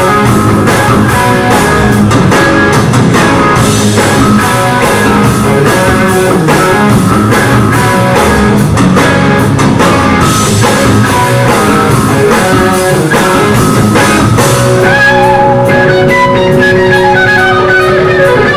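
Rock band playing live, with electric guitars over a drum kit. Near the end a guitar holds long sustained notes.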